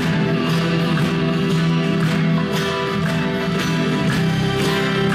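Live instrumental passage of a song: an acoustic-electric guitar strummed in a steady rhythm, about two strums a second, over sustained pitched tones.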